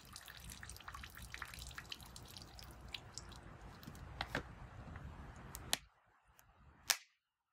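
Water trickling and dripping from a Sawyer Mini hollow-fibre filter screwed onto an upside-down plastic bottle, with sharp clicks of the bottle being squeezed to push the last of the water through. It stops about six seconds in, leaving one more click near the end.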